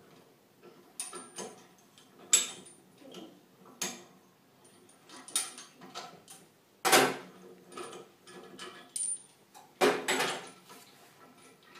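Clamp handles on a mini autoclave bubble remover's round chamber door clicking and clanking as they are turned and tightened, sealing the door to hold high pressure. The knocks come irregularly, with the two loudest about seven and ten seconds in.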